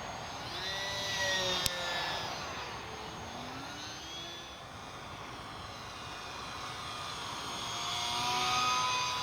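Ultra-micro RC Cessna 182's brushless electric motor and propeller whining as the model flies past, the pitch sliding up and down with each pass, loudest about a second and a half in and again near the end. A single sharp click sounds about a second and a half in.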